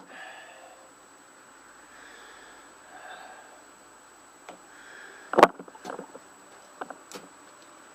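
A few sharp knocks and clicks of hand work on a lawn mower's gas tank and its fittings, the loudest about five and a half seconds in and several lighter ones just after.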